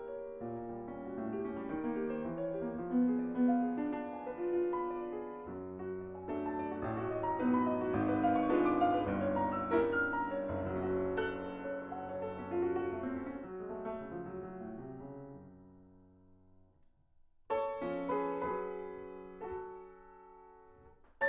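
Steinway grand piano played solo. A dense passage swells to its loudest about a third of the way in, dies away to a brief pause, then a new phrase enters suddenly and fades.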